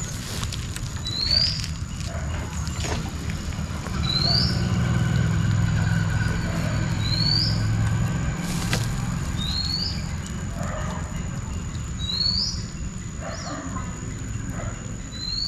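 A bird repeats a short, rising, whistled note about every two to three seconds, over a steady low rumble.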